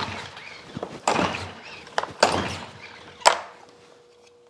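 Recoil pull cord on a small pressure-washer engine yanked about four times, roughly a second apart, cranking the engine against a compression gauge threaded into the spark plug hole. Each pull is a sudden rasp that quickly fades. A faint steady hum starts after the last pull.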